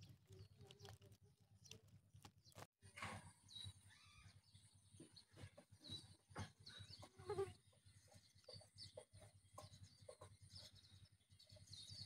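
Near silence: faint outdoor ambience with small rustles and clicks and a few faint high chirps, briefly cutting out completely about three seconds in.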